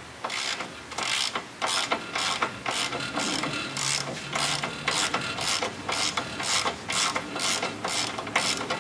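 Hand ratchet wrench clicking in quick repeated strokes, about two to three a second, as a socket on an extension turns the nut on the stud of a heim-joint outer tie rod end.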